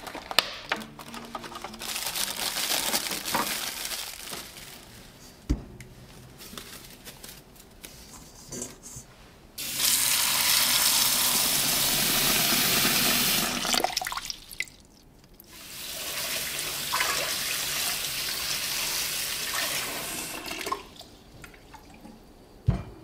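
Kitchen tap running into a stainless steel bowl of green grapes as they are rinsed, in two long steady spells of about four and five seconds, with a softer stretch of water and handling early on. Light clicks fall between, and there is a single knock near the end.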